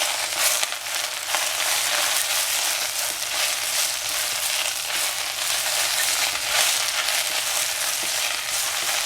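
Vegetables frying in hot oil in a pan, with a steady sizzle and occasional scrapes as they are stirred.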